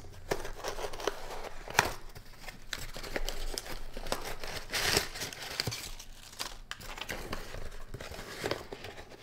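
Cardboard flaps of a USPS Priority Mail flat-rate box being pried and torn open by hand: irregular rustling, scraping and tearing of the cardboard, with a sharp click a couple of seconds in and a louder tear about halfway through.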